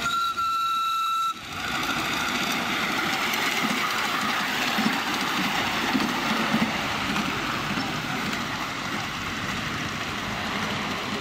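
Miniature ride-on railway locomotive sounding a short whistle, one steady note lasting about a second. It is followed by the steady rumble and clatter of the small train running along the track.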